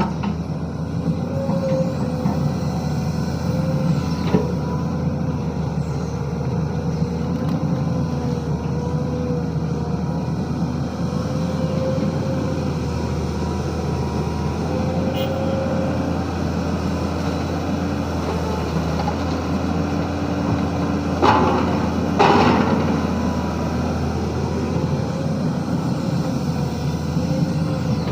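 Diesel engine and hydraulics of a SANY SY215C excavator working, running steadily with a tone that wavers up and down as the load changes. Two short, loud, sharp noises come about three-quarters of the way through.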